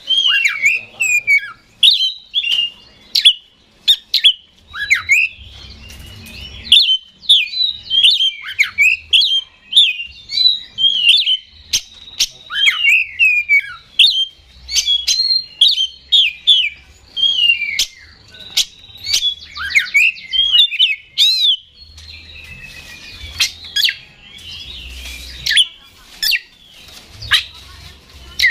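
Oriental magpie-robin singing a fast, unbroken song of varied whistles, slurred rising and falling notes and sharp clicks. About three quarters of the way through it turns sparser, into scattered notes and clicks.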